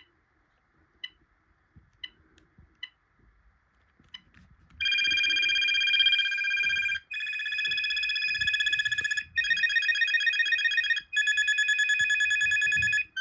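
A BT Concero 1400 cordless phone handset gives a few short beeps, then about five seconds in plays through four different electronic ringtones in turn, each about two seconds long and cut off as the next one starts.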